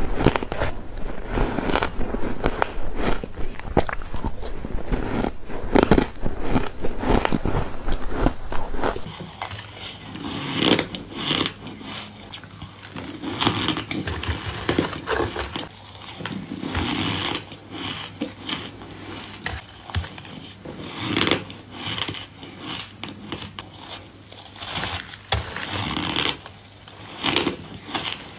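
A person biting and chewing porous freezer-frost ice: dry, crisp crunches. They come thick and fast at first, then after about nine seconds turn into separate crunchy bites every second or two.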